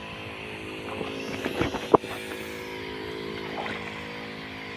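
Small engine of a power sprayer running steadily as it pumps insecticide out through a spray lance as fine mist. A sharp click about two seconds in.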